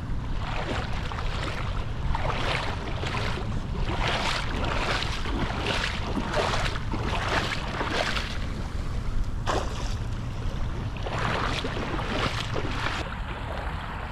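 Water splashing in repeated short, irregular strokes in shallow bay water while a hooked flounder is being landed, over a steady low rumble of wind on the microphone.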